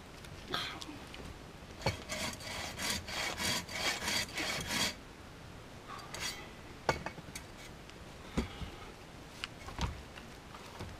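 Bow saw cutting a log on a wooden sawhorse: a fast, even run of push-pull rasping strokes, about four a second, for roughly three seconds, then pauses broken by a few short scrapes and knocks.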